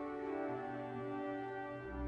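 Slow background music of long held notes, without narration.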